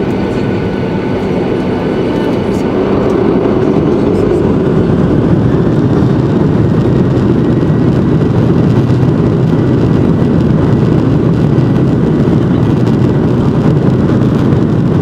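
Boeing 737-900ER heard from inside the cabin: a loud, steady rumble of its jet engines and the rolling airframe, growing louder a few seconds in as thrust builds for the takeoff roll.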